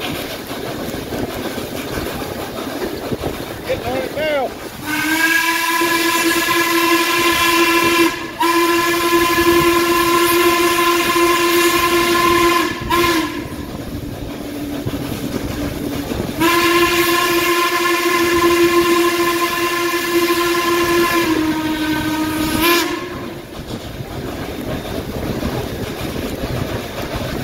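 Baldwin 2-6-6-2 articulated steam locomotive 1309's steam whistle, heard close from the car right behind the engine. It blows three long chime blasts, each dipping slightly in pitch as it cuts off, as the train approaches a road crossing. Between the blasts is the steady noise of the train rolling.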